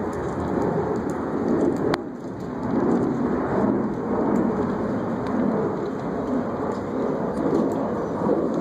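Wind buffeting the phone's microphone: a loud, uneven low rumble that swells and fades, with a sharp click about two seconds in.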